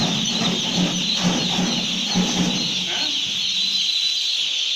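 A dense, continuous chorus of many day-old poultry chicks peeping together.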